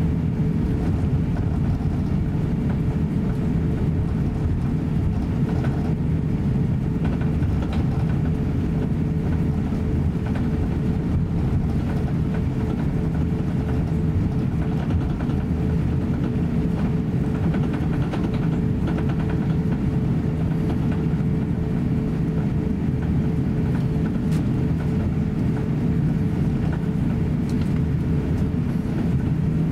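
Steady cabin noise inside a taxiing Airbus A350-900: a low rumble from the engines at taxi power and the wheels rolling on the taxiway, with a steady hum on top.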